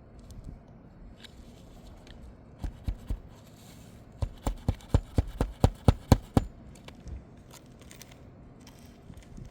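Hammer striking a roofing nail through an asphalt shingle: three light taps, then a quick run of about ten harder strikes, some five a second.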